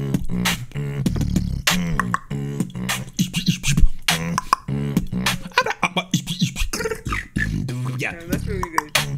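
Human beatboxing: rapid mouth-made kicks, snares and hi-hat clicks in a steady rhythm over a low hummed bass line that moves between a few notes.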